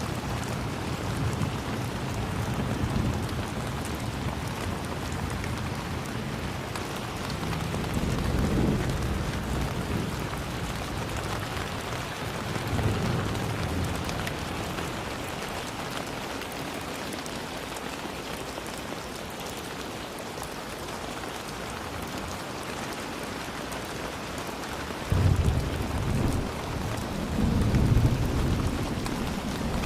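Steady rain falling, with low rolls of thunder rumbling a few times, the loudest near the end.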